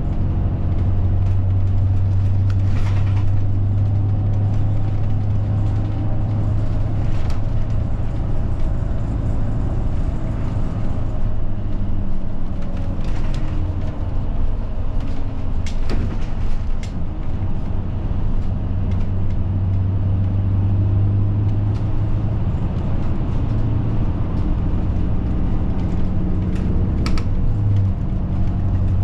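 Route bus engine running steadily, heard from inside the passenger cabin: a continuous low drone whose pitch slowly rises and falls with speed, with a few brief rattles.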